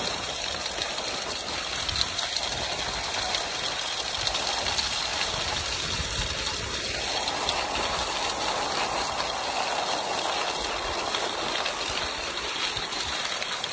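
Skis gliding and scraping along a groomed cross-country track, a steady rushing, scratchy noise with an uneven low rumble of wind on the microphone.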